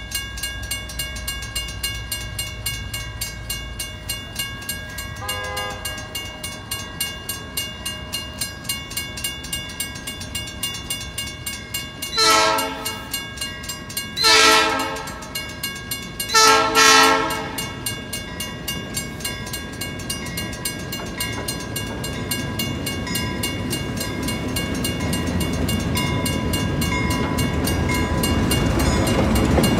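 Railroad crossing warning bell ringing in a steady, rapid rhythm while a Fillmore & Western Railway locomotive approaches, sounding its horn: a faint blast about five seconds in, then three loud blasts between about twelve and eighteen seconds in. The low rumble of the locomotive grows louder near the end as it reaches the crossing.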